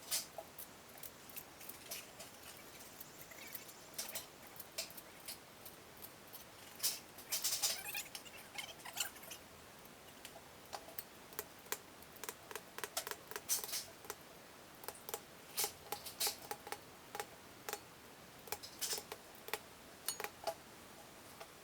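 Faint, irregular light clicks and taps of small parts being handled during the wheel assembly, in small clusters.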